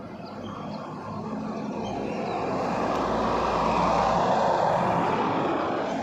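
A vehicle passing by on the road, its engine and tyre noise swelling to a peak about four seconds in and then fading away.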